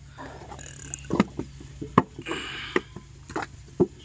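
Clay bricks being moulded by hand: sharp knocks and slaps of wet clay and brick moulds striking the ground, spaced irregularly about half a second to a second apart, with a short scrape a little past halfway.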